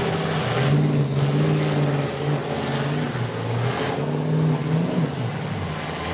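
Big school bus engines running and revving up and down in a demolition derby, with two louder rushes of noise, about a second in and near four seconds.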